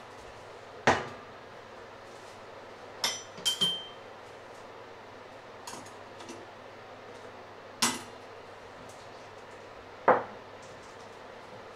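Kitchen utensils being cleared off a wooden counter and set down: a bread knife and fork clinking onto a stainless steel steamer basket. About six separate knocks and clinks spaced a few seconds apart, the cluster about three seconds in ringing briefly.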